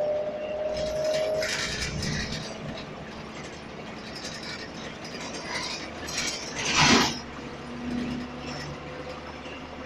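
Scania single-deck bus on the move, heard from inside the saloon: the engine and drivetrain hum steadily while seats, panels and fittings rattle. The loudest moment is a sharp clatter about seven seconds in.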